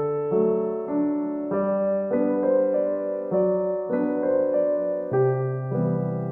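Background music: a gentle piano or electric-piano tune, its notes and chords changing about every half second.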